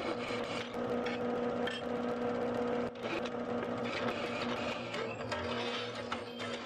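Drill press motor running with a steady hum while a twist drill bit cuts through a steel knife blank. There is a brief dip in the cutting about three seconds in.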